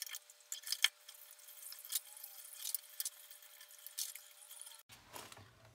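Dishes and utensils clinking and clattering at a kitchen sink: irregular sharp clicks and knocks, with a faint steady hum underneath that stops suddenly near the end.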